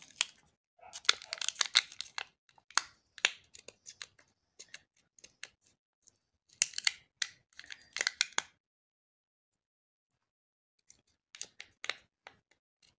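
Adhesive strips under a Samsung A20's smartphone battery, softened with isopropyl alcohol, tearing and crackling as the battery is peeled up out of the frame. The crackling comes in three spells, with a pause of about two seconds before the last one.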